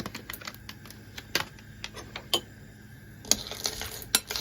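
Dark chocolate chips dropping into a glass bowl, making a scattering of light, uneven clicks and ticks, a few of them sharper than the rest.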